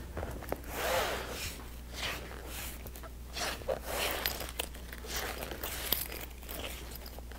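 Long white zipper and its fabric tape being handled and slid across a worktable: scattered rustling and rubbing with a few light clicks.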